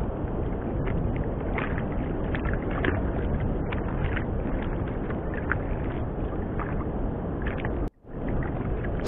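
Wind rushing over the microphone and sea water slapping against a small wooden boat's hull, with faint scattered ticks. The sound cuts out for a moment near the end.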